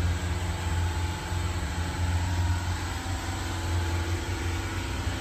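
Steady low mechanical drone of background machinery, a din that runs without a break and is loud enough that talking over it needs shouting.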